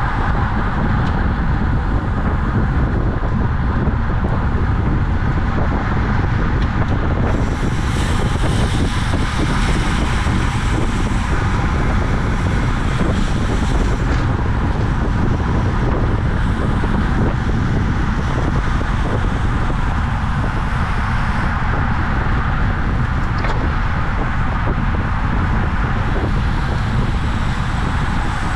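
Wind rushing over the microphone of a camera carried on a road bicycle at racing speed: a steady, loud rush with a deep rumble underneath. A brighter hiss joins in from about 7 seconds in and drops away again around 14 seconds.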